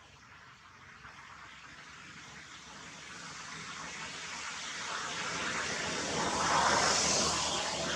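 A vehicle passing by: a rushing noise that swells slowly over several seconds, is loudest near the end, then begins to fade.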